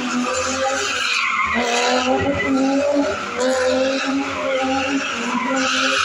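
BMW E30 drift car sliding under power, its engine revs rising and falling as the rear tyres spin and screech, throwing up tyre smoke.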